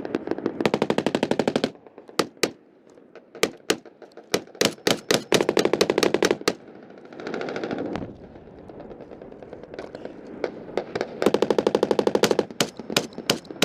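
Machine-gun fire in long rapid bursts, at the start and again near the end, with scattered single shots and short bursts in between.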